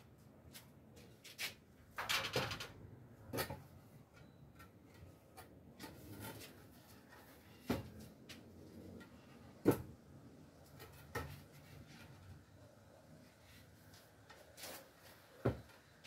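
Wooden knocks and clatter as a wooden bed headboard and loose boards are handled and moved. There is a short cluster of knocks about two seconds in, then single sharp knocks every couple of seconds.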